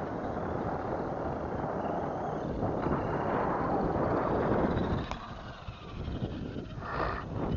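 Arrma Granite 4x4 Mega RC monster truck with a Castle Sidewinder 4 brushless motor running on concrete, its motor giving a faint whine over tyre and wind noise on the microphone. The noise drops away about five seconds in.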